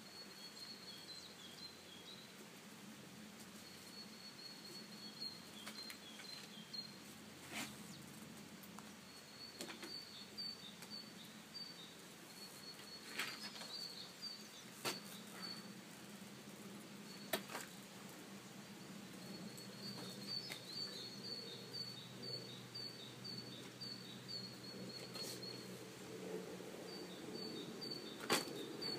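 A small songbird singing short, high, chirping phrases again and again, over a low steady rumble of road traffic that swells near the end. A few sharp clicks stand out above it.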